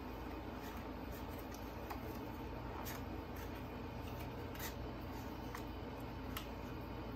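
Soft paper rustles and a few light clicks as a picture book's pages are handled and turned, over a steady low room hum.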